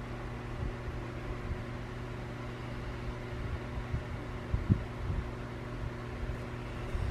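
A steady low hum in the room, with a few soft low bumps, the strongest a little after halfway.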